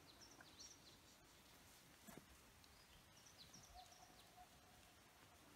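Near silence, with faint, high, short bird chirps in a couple of small clusters, one near the start and one around three seconds in.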